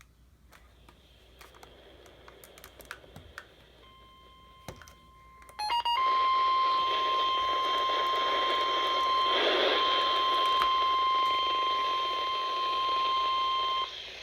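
Weather radio warning alarm: a quick run of short bleeps about five and a half seconds in, then a loud steady single high tone over radio hiss that cuts off near the end. It is the alert tone that announces a National Weather Service flood warning broadcast.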